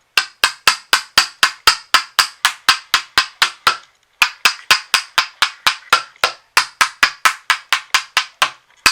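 A toy hammer rapidly striking wooden pegs, driving them down through a wooden pound-a-peg bench: about four sharp knocks a second, with a short break about four seconds in.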